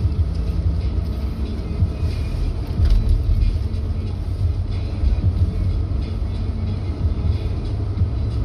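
Car driving at low speed, heard from inside the cabin: a steady low road and engine rumble.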